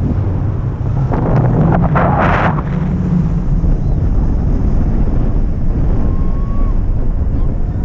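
Airflow buffeting the camera microphone in tandem paragliding flight: a steady low wind rumble, with a louder, hissier rush about a second in that lasts a second or so.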